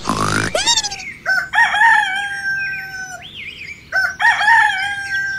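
A rooster crowing twice, about three seconds apart. Each crow rises sharply and is then held for over a second.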